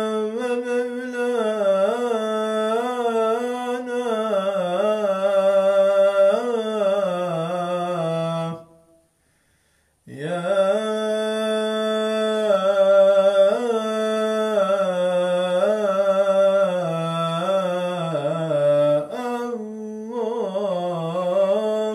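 A male imam chanting the salâ, the Arabic blessing on the Prophet, solo and unaccompanied, in long ornamented melismatic phrases. One long phrase breaks off for a breath about nine seconds in, and a second long phrase follows.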